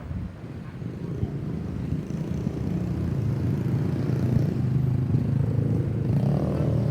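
Road traffic: a motor vehicle's engine running with a steady low hum that grows louder as it draws near.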